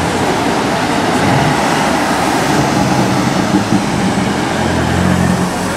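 BMW M4's twin-turbo straight-six running at low revs as the car rolls past in traffic, a low engine drone that grows louder near the end, over steady road traffic noise.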